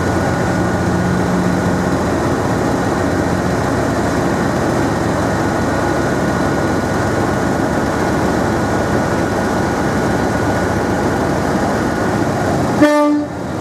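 Class 37 diesel-electric locomotive's English Electric V12 diesel engine running hard, opened up with a steady loud note. Near the end comes a short, loud pitched blast on the locomotive's horn.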